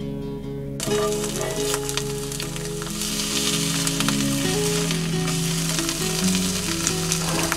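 Eggs sizzling and frying in a cast-iron skillet, starting suddenly about a second in, with a spatula working under them.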